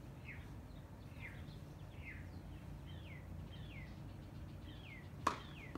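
A bird calling over and over, a short down-slurred chirp about once a second. About five seconds in, a single sharp hit, a ball being struck.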